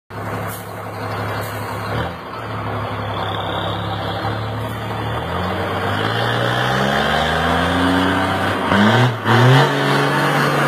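Ford Cargo truck's diesel engine running steadily, then rising in speed from about halfway through. Near the end the pitch dips briefly and climbs again, then holds steady at higher revs.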